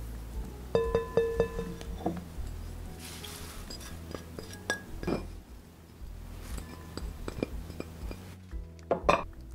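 Ceramic dishes and a spatula clinking and knocking against a glass mixing bowl as ingredients are tipped in. The clearest clinks ring briefly, about a second in.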